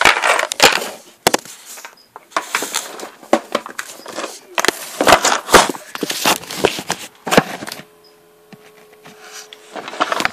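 Loud bursts of rustling and scraping with sharp clicks: handling noise from the handheld camera, its microphone being rubbed and knocked. It stops about eight seconds in.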